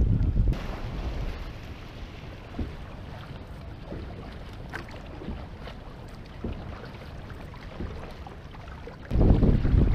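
Wind buffeting the microphone on a moving canoe. It drops away about half a second in, leaving water running along the hull with scattered small splashes and knocks, then gusts back in loud near the end.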